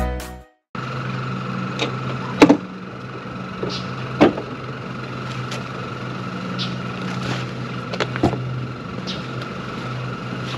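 Background music fading out, then a vehicle engine idling steadily, with scattered sharp clicks and knocks of gear being handled at the open back of a pickup truck.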